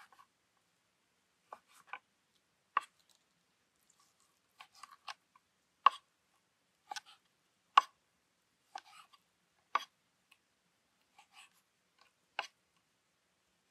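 A knife cutting raw beef tenderloin into cubes, knocking sharply on a wooden cutting board about once a second as each cut goes through.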